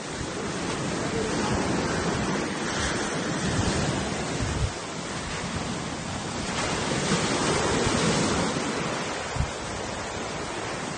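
Sea waves washing up the beach, a steady rush that swells twice as waves come in, with some wind rumble on the microphone.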